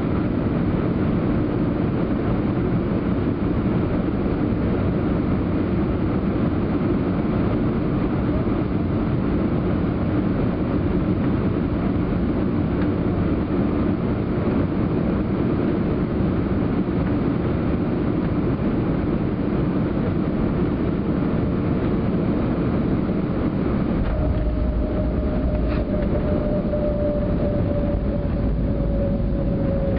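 Airbus A320 cabin noise on final approach, a steady rush of engine and airflow. About 24 seconds in the aircraft touches down: a deeper runway rumble from the landing gear sets in, along with a slowly falling whine. A single click follows a couple of seconds later.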